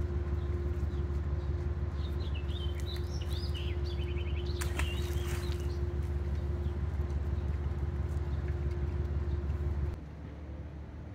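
Steady low outdoor rumble with a faint steady hum. A small bird chirps a few quick notes in the middle, with a few light clicks. The rumble drops sharply about ten seconds in.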